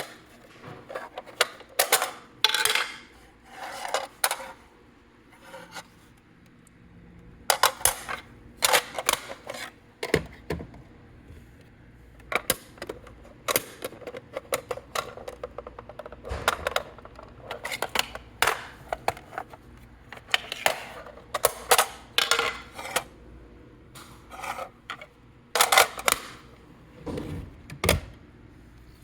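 Irregular clicks, knocks and scrapes of hard objects being handled and set down, coming in scattered clusters with short quiet gaps between them.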